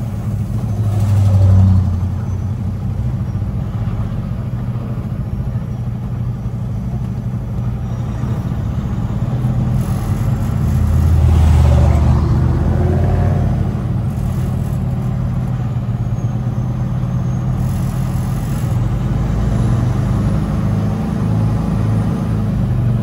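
Semi truck's diesel engine running as the tractor drives along, heard from inside the cab as a steady low rumble. It grows louder twice, about a second and a half in and again around eleven to thirteen seconds in.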